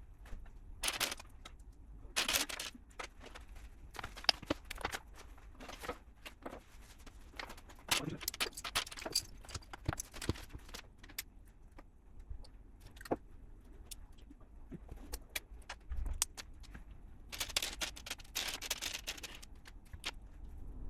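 Loose plastic LEGO pieces clicking and rattling as they are handled and pressed together, with bursts of rummaging through parts about a second in, just after two seconds, and again near the end.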